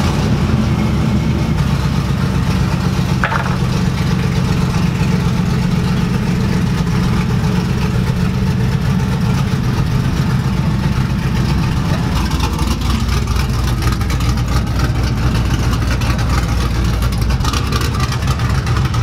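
Cammed 6.0-litre V8 of a lowered GMC pickup running loud through open electric exhaust cutouts, a steady deep exhaust note with a rapid, uneven pulse as the truck creeps along at low speed.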